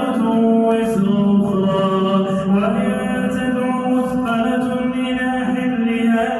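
A single male voice reciting the Quran in slow, melodic tajwid, holding long drawn-out notes that shift pitch only a few times.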